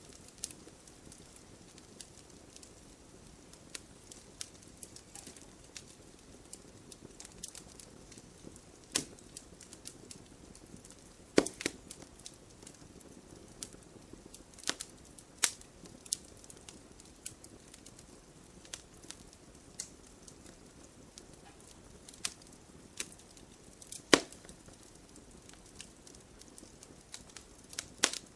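Wood campfire burning with a low steady hiss and scattered sharp pops and crackles, a few louder snaps standing out.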